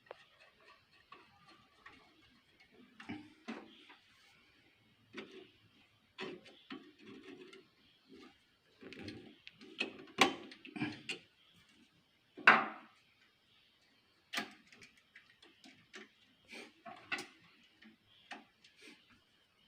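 Irregular clicks, taps and knocks from a sewing machine's mechanism worked slowly by hand, as the needle and shuttle hook are turned through to check that the needle does not strike the shuttle; one sharper knock comes about twelve seconds in.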